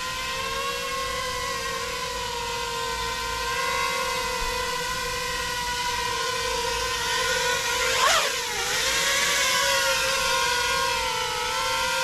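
5-inch FPV quadcopter's brushless motors and propellers whining steadily while flying in angle mode, the pitch wavering slightly. About eight seconds in the whine surges briefly up and back down in pitch, the loudest moment.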